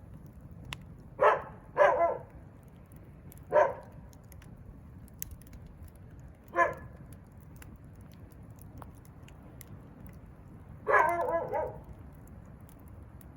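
A dog barking: a few short, separate barks at uneven intervals, the last a longer run near the end. Faint crackling pops of a burning wood fire run underneath.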